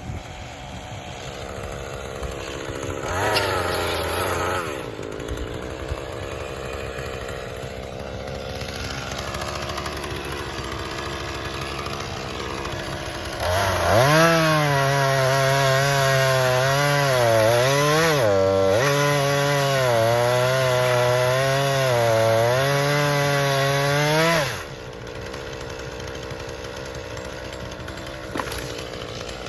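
Two-stroke chainsaw idling, with a short rev about three seconds in. Just before halfway it is opened up to a loud high-revving run, presumably cutting, for about ten seconds. Its pitch sags and recovers briefly in the middle, then drops back to idle.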